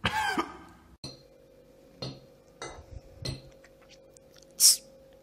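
A brief voice at the start, then a metal fork clinking against a plate three times over a faint steady hum. Near the end comes a short, loud hiss.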